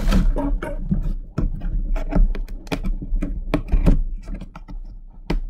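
Cardboard box being handled and its lid flaps closed: a quick run of irregular clicks, taps and scuffs of cardboard.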